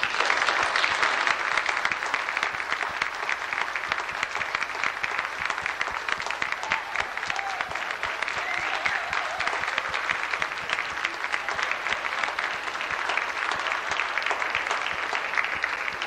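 Audience applauding: dense, steady clapping from many hands that starts abruptly as the band stops playing.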